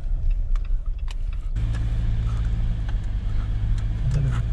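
Car engine and road noise as heard from inside a moving car: a steady low drone that grows stronger and more even about a second and a half in, with light clicks and rattles over it.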